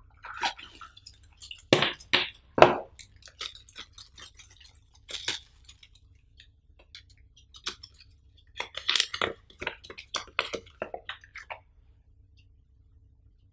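Plastic and paper packaging crinkling and rustling as it is pulled off and handled around a coiled USB cable, in irregular crackles that stop near the end.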